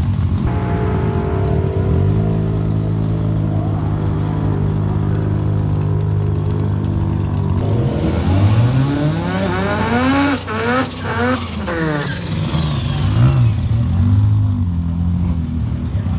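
Drag car engine in an early-1970s Toyota Corolla idling steadily, then revved hard from about eight seconds in, the pitch climbing to two quick peaks and dropping back, followed by a few short throttle blips.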